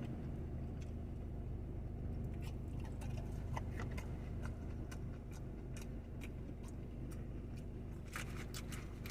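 Chewing a mozzarella stick: soft, scattered mouth clicks and smacks over a steady low hum, with a quick run of clicks near the end.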